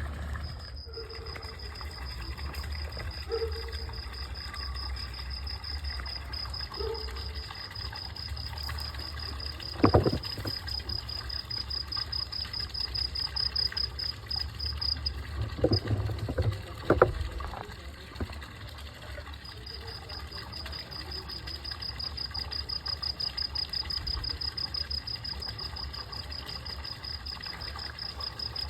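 A cricket trilling: a steady, rapidly pulsing high note that stops for a few seconds past the middle and then resumes, over a low rumble. A few sharp knocks sound near the middle.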